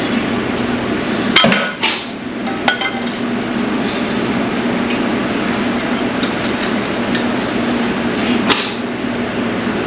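Hand tools knocking and clinking on metal engine parts a few times, the loudest about a second and a half in and again near the end, over a steady loud background noise.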